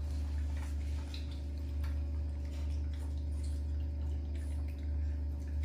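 Macaques chewing and biting mango, heard as faint, irregular wet clicks and smacks over a steady low hum.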